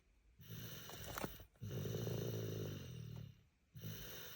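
A 25-month-old toddler snoring in deep sleep like a grown man, low snores breath after breath with short pauses between them.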